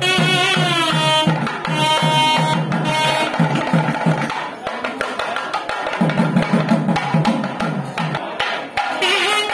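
Music with fast, dense drumming and a wavering reed-like wind melody over it; the melody slides downward in the first second. The drumming eases off for a couple of seconds in the middle.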